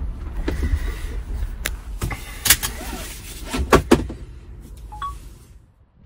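Low drivetrain rumble from the rear axle of a Jeep Wrangler 4xe rolling slowly, with several sharp clicks and knocks, the loudest about two and a half and just under four seconds in. The owner suspects the sound comes from the Dana 44 limited-slip rear differential.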